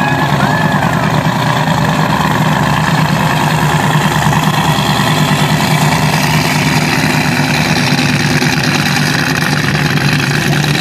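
Offshore racing powerboat's engines running with a steady, even low hum as the boat pulls away across the water.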